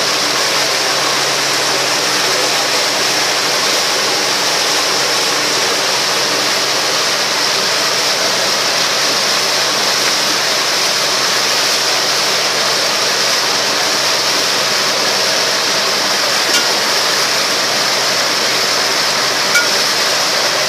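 Steady rush of churning wake water behind a moving ferry, with the ferry's engine humming low underneath.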